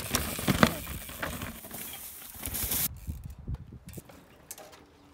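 Mountain bike riding down over rocks: tyres rumbling and the bike knocking on the rock, with wind noise, the loudest knocks about half a second in. About three seconds in it cuts off to a quieter stretch with a few scattered clicks and knocks as a bike is wheeled and lifted.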